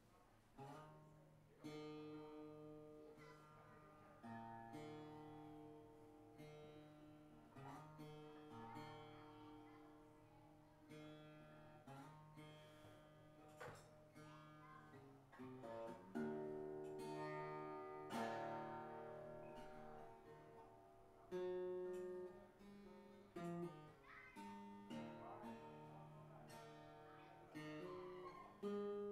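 Improvised acoustic guitar music on a koa-wood guitar: picked notes and chords with occasional strums.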